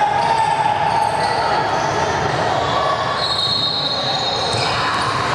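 Basketball shoes squeaking on a hardwood gym floor during play, with a higher squeal about three seconds in, over the general din of the gym.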